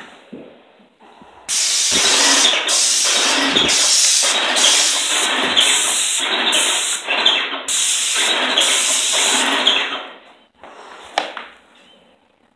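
Paint sprayer hissing as it sprays white paint onto slats, in a run of passes with brief breaks, stopping about ten seconds in. A single click follows near the end.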